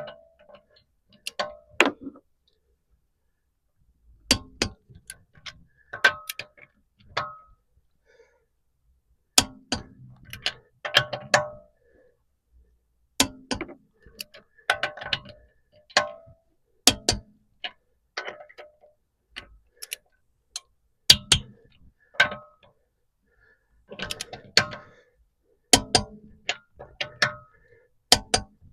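Click-type torque wrench ratcheting lug bolts in short bursts of sharp clicks with pauses between them. The wrench gives a click when each bolt reaches its set torque.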